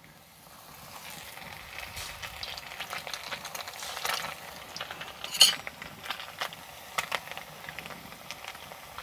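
Tortilla flautas deep-frying in hot oil in a clay cazuela: a steady sizzle full of small crackles and pops, swelling in the first second as the flautas go into the oil. A single sharp click about five and a half seconds in.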